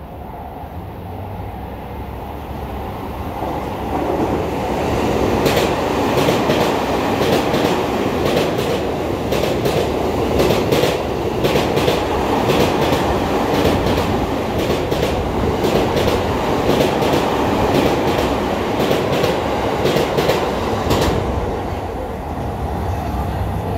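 JR East E231 series electric train passing through a station without stopping: a rumble of wheels on rail that builds from about four seconds in, with a long run of rhythmic clacks as the wheels cross the rail joints, easing off near the end.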